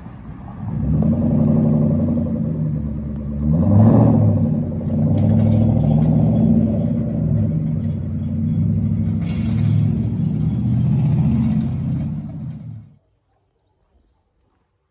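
Straight-piped exhaust of a Kia K900 that still has its catalytic converters, the car pulling away with a loud engine drone. It revs up sharply about four seconds in and swells again around nine seconds, then cuts off suddenly near the end.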